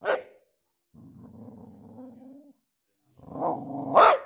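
Boxer dog barking and growling: a short bark, then a low growl of about a second and a half, then another growl that builds into a loud bark near the end.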